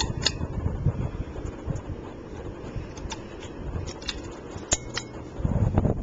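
Hunter Westminster 52-inch ceiling fan running, a steady low whoosh of moving air with scattered light clicks. Near the end the fan's draught buffets the microphone with louder low rumbling.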